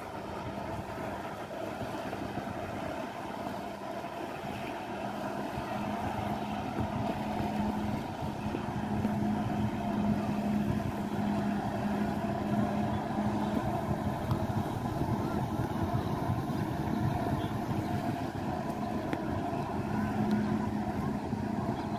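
Jet ski engine running steadily at high revs to drive a flyboard's water jets, a steady hum over a rushing noise of water spray and wind. It grows somewhat louder about a third of the way in.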